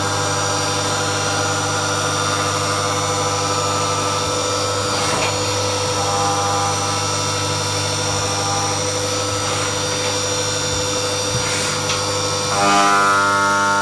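CNC machine running while it machines a part: a steady whine of several held tones from the spindle and drives over a hiss of cutting. Near the end the tones change and it gets a little louder.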